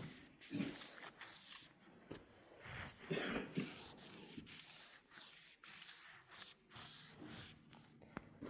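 Fine 1500-grit sandpaper rubbed by hand over a surface in repeated faint, hissing strokes with short pauses between them.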